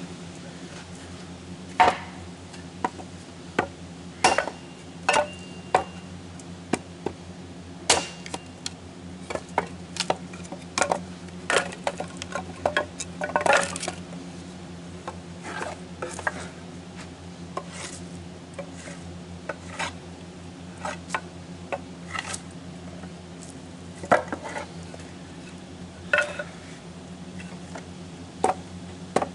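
Kindling being chopped from knotty scrap wood: irregular sharp knocks of a blade striking wood, with split pieces clattering, over a steady low hum.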